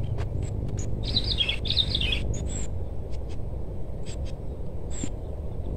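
A small bird chirping, with a quick run of high notes about a second in and a few short chirps later, over a steady low rumble.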